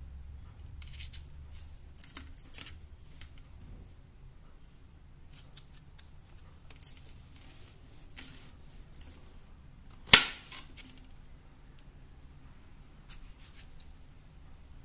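A kitchen knife slicing strawberries held in the hand over a steel plate, with scattered light clicks and taps of the knife and the cut pieces on the plate, and one sharp knock about ten seconds in.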